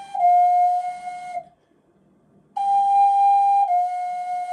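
Ocarina playing a step down from Sol to Fa, twice: a clear held note, then one a step lower. The first pair ends about a second and a half in, and the second starts about two and a half seconds in. The Fa is blown with the same breath as the Sol, so it comes out too high, although it still sounds like Sol–Fa.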